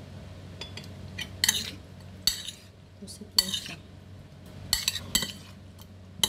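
Metal spoon clinking and scraping against a ceramic bowl while stirring flour-coated squid pieces: about six sharp clinks spread over a few seconds.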